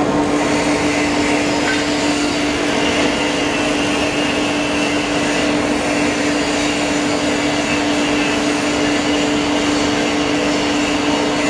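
Foam slicing machine running steadily while cutting a memory foam block into a thin sheet: an even whirring noise with a constant hum.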